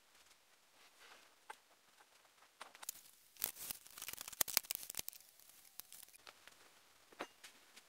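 Handling noise from the camera being picked up and repositioned: a flurry of soft rustling and sharp clicks, densest about three to five seconds in, with a few stray clicks after.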